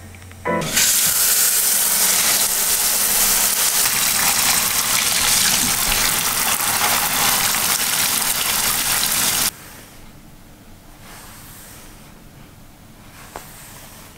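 Water running hard into a basin as hair dye is rinsed out. It starts about half a second in and stops abruptly a little after the middle, leaving only faint room sound.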